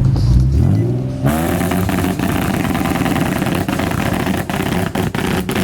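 Nissan 370Z's 3.7-litre V6 being revved in place: the engine note climbs from idle over about a second, then runs loud at high revs through its exhaust, with a few brief dips near the end.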